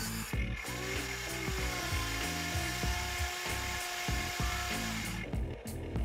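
Background music together with the whir of a small electric motor.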